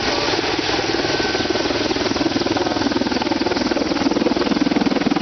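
Mil Mi-24 attack helicopter flying a low display pass: turbine noise with rapid main-rotor thumping, growing louder as it comes overhead.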